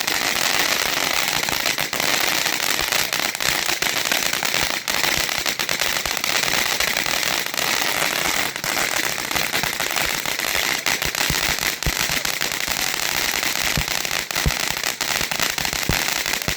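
TNT Toxic Barrel Fountain, a ground fountain firework, burning: a steady loud hissing spray packed with dense crackling.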